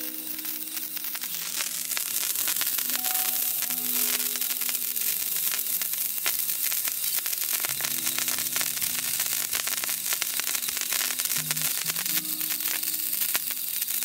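Handheld fireworks spraying sparks: a steady hiss thick with fine crackling. A few soft held notes of background music sit underneath.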